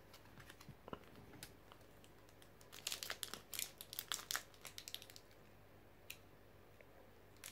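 Foil wrapper of a Pokémon Sword and Shield booster pack crinkling as it is torn open by hand, in a cluster of quick crackles from about three seconds in, after a few faint clicks.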